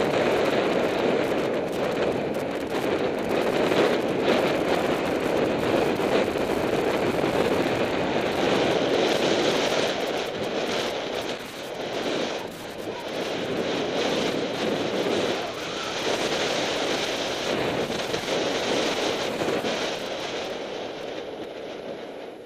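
Wind rushing over the microphone of a camera on a cyclocross rider in motion, mixed with the constant rattling and knocking of the bike and camera over rough ground. It grows quieter near the end.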